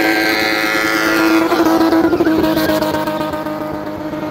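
BMW M20 straight-six engine held at high revs in a spinning car: a steady high-pitched engine note that wavers briefly about halfway through.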